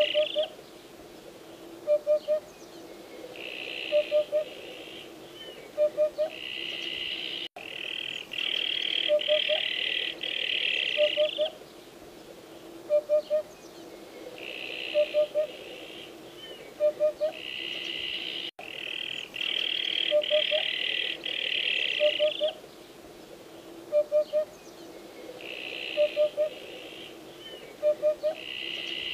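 Eurasian hoopoe calling, a low hollow hoot in groups of two or three notes, repeated about every two seconds. A higher pulsing buzz comes and goes in bouts of a few seconds behind it.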